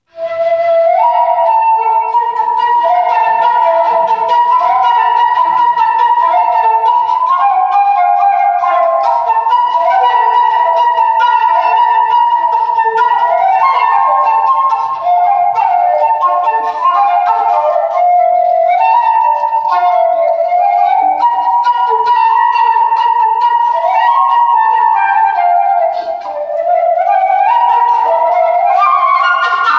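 Solo transverse flute playing a melody of quick, separate notes, with two brief pauses about fifteen and twenty-six seconds in.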